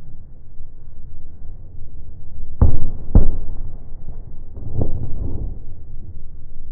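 Fireworks shells bursting: two loud booms about half a second apart near the middle, then a smaller cluster of bangs, over a steady low rumble.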